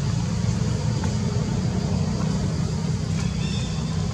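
Steady low outdoor background rumble with a faint hiss above it, and a faint short chirp about three seconds in.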